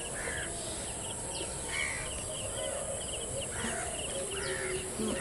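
Outdoor animal sounds: a bird giving short rising-and-falling calls every second or so, over a steady high insect drone and a rapid chirping pulse.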